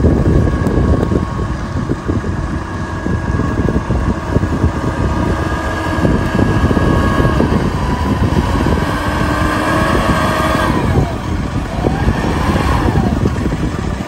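Diesel engine of an L&T 9020 wheel loader running under load as it clears snow, with a whine that rises and falls near the end. Wind buffets the microphone.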